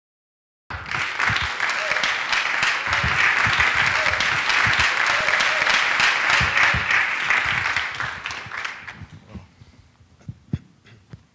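Audience applauding, cutting in suddenly and dying away over the last few seconds, with a few scattered claps near the end.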